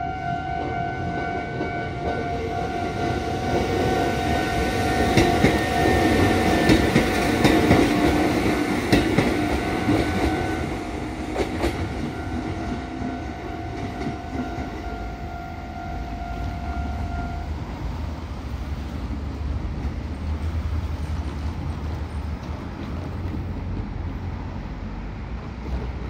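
Kotoden 1080-series two-car electric train passing, its wheels clacking over rail joints, loudest about a third of the way in and then fading as it pulls away. A level-crossing warning signal rings steadily through the first two-thirds and stops.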